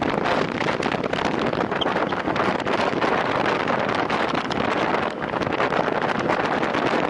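Steady wind rushing over the microphone of a rider racing a time-trial bicycle at speed.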